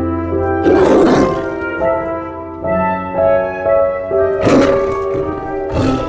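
Tiger roaring, two rough roars about a second in and at four and a half seconds, and a short third one at the end, over instrumental background music.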